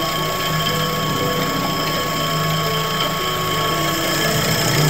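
Large bowl-cutter meat chopper running steadily, its rotating stainless-steel bowl carrying meat through the hooded chopping blades; a continuous mechanical whir.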